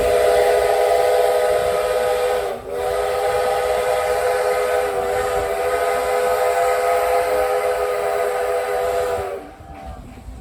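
A train's chime whistle sounds a long multi-note signal. It breaks off briefly about two and a half seconds in, then holds steady again until it cuts off near the end.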